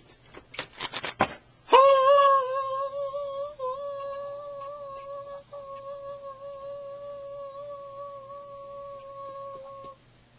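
A few sharp clicks, then, just under two seconds in, a man starts humming one long steady note with closed lips and holds it for about eight seconds, the pitch wavering only slightly.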